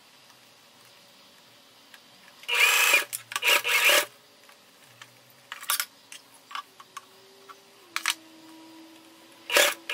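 Crepe fabric rustling and rubbing in a few short loud bursts, with small clicks between them, as a ruffle is handled and folded into pleats at a sewing machine.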